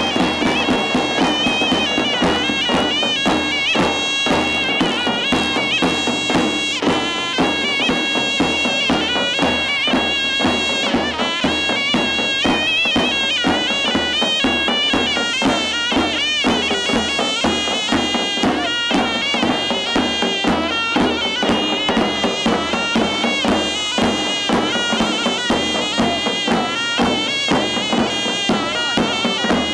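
Zurna and davul playing a Turkish folk dance tune: the zurna's reedy, ornamented melody over steady, regular beats of the davul, a large double-headed drum struck with a heavy mallet.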